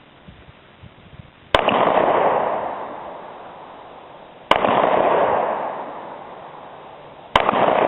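Three single shots from a Glock pistol, fired slowly about three seconds apart, each followed by a long echoing decay.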